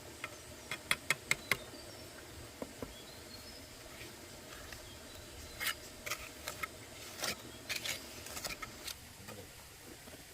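Five sharp taps or clicks in quick succession about a second in, then a cluster of short scraping, rustling sounds in the second half, over a faint steady background.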